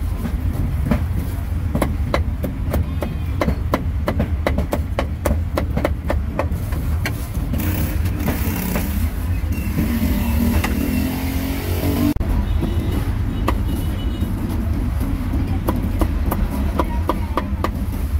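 Meat cleaver chopping roast pork and duck on a chopping block: a run of quick, uneven chops that pauses for a few seconds in the middle, then starts again. A steady low traffic rumble runs underneath.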